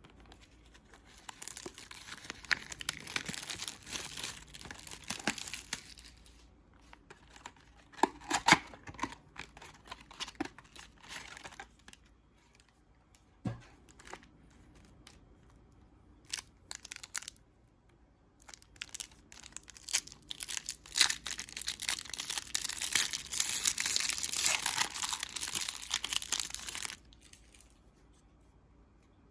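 Trading card packaging being torn open and crinkled by hand, in two long spells of tearing and crinkling with scattered clicks and snaps between them.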